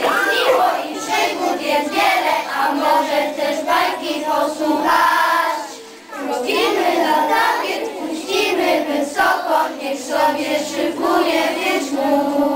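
A group of young children singing a song together, with a brief break between lines about halfway through.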